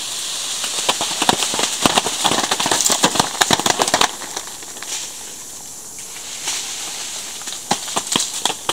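An apricot tree being shaken: leaves rustle and a quick irregular patter of apricots drops onto a plastic tarp for a few seconds. A few more fruits fall near the end.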